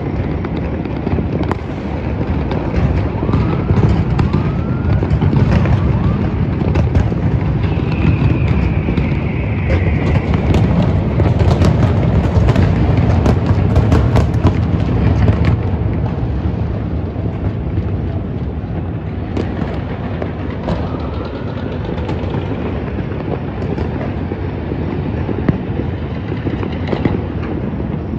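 Dense fireworks and firecrackers going off without a break: many sharp pops and bangs over a continuous rumble of distant booms, busiest between about 4 and 15 seconds in, with a few short whistling glides.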